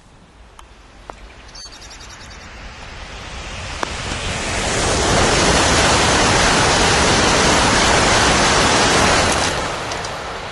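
A train passing at speed: a rush of noise that swells over a few seconds, holds loud for about four seconds, then dies away.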